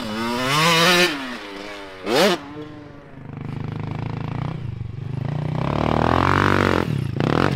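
Small dirt bike engines running and revving as riders ride around a dirt track. The throttle opens and closes, with a short sharp rev a little after two seconds and a longer climb in pitch near the end.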